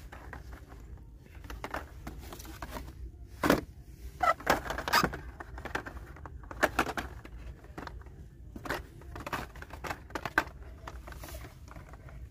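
Hot Wheels blister packs being flipped through on a store peg: plastic and card clacking and crinkling in irregular bursts, loudest from about three and a half to five seconds in.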